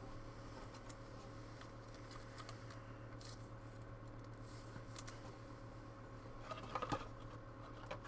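Faint handling of trading cards and pack wrappers: small clicks and light rustling, busiest about six and a half seconds in, over a steady low electrical hum.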